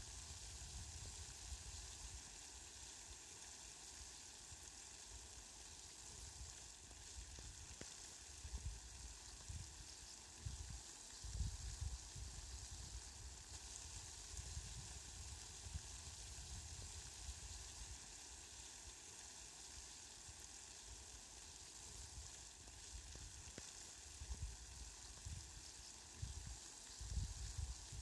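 Fine water falling steadily onto petunias and lawn grass: a soft, even hiss. A few low rumbles come through about ten to twelve seconds in and again near the end.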